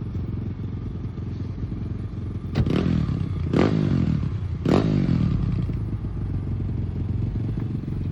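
Apollo RFZ 140cc pit bike engine running at idle, blipped sharply three times about a second apart, around three, four and five seconds in, then settling back to idle.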